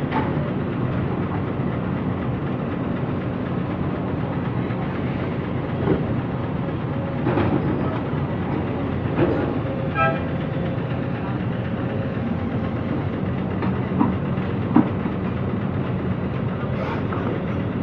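Heavy diesel machinery running steadily: a Jonyang JY623E excavator working soil into an Isuzu Giga dump truck. Scattered clanks and knocks stand out from the engine drone.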